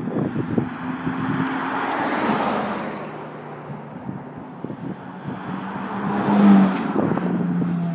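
Ferrari F430's V8 engine passing close by, loudest about six and a half seconds in, its pitch dropping a little as it goes past. A more distant car's engine is heard about a second in, and wind buffets the microphone throughout.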